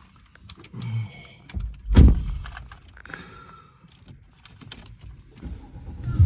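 A single heavy thump about two seconds in, among scattered light clicks and knocks of things being handled.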